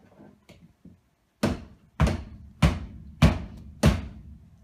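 Five heavy thuds on a wooden table, evenly spaced a little more than half a second apart, each dying away quickly.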